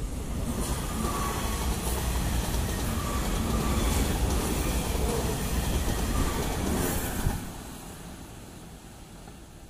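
Electric multiple-unit passenger train passing close by at speed: a steady rumble of wheels on the rails with a few sharp clacks. The noise drops off suddenly about seven seconds in as the last car goes by, leaving a fading rumble.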